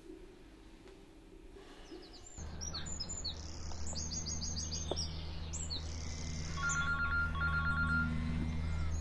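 Birds chirping and singing over a low steady hum of outdoor ambience. About six and a half seconds in, a mobile phone starts ringing with a repeating electronic ringtone.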